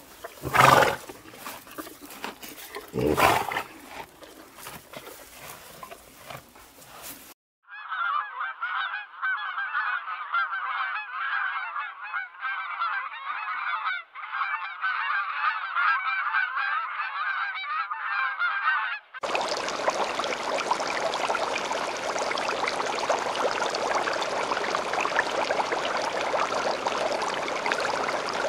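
Separate animal clips: two loud calls in the first few seconds, then a flock of birds calling densely for about eleven seconds, then a steady rushing noise.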